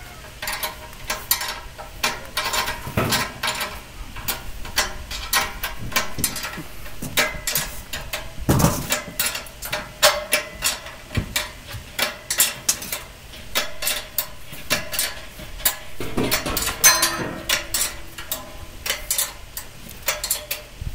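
Steel wrench tightening the nuts on the bolts that hold the mould of a steel concrete block moulding machine: a run of irregular metal clicks and clinks, with a few louder knocks.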